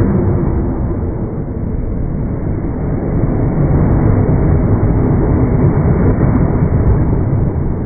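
Slowed-down sound of an electric commuter train passing a level crossing: a deep, steady rumble with nothing high-pitched in it.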